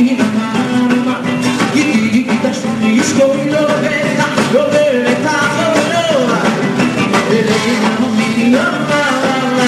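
Live concert music: a band plays with a lead voice singing a moving melody over it.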